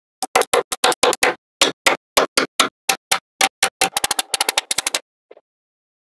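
Magnetic balls clicking and snapping together as blocks of them are set in place: a run of sharp, irregular clicks, several a second, coming faster in a quick flurry about four seconds in and stopping shortly before the end.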